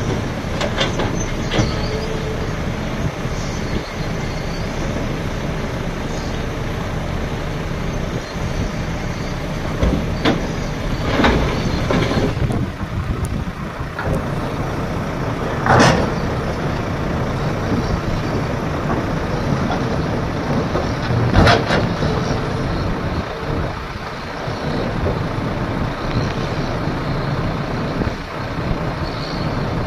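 Diesel engines of a Volvo excavator and Volvo FMX tipper truck running steadily, with several loud crashes of rock being dropped into the truck's steel tipper body.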